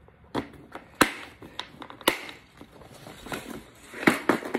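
Clear plastic tackle box full of lipless crankbaits being shut and handled: hard plastic clicks and knocks from the lid and snap latches. Three louder clacks come about a second apart, then a quicker run of small clicks that grows louder near the end.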